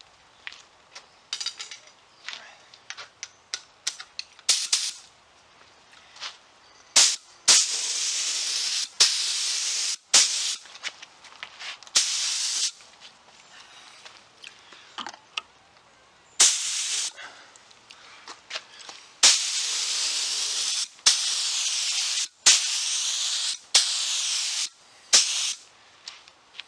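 Spray gun hissing in repeated trigger bursts while spraying a light walnut toner coat onto an oak panel. A few brief puffs come first, then longer passes of one to two seconds each, each starting sharply and stopping when the trigger is let go.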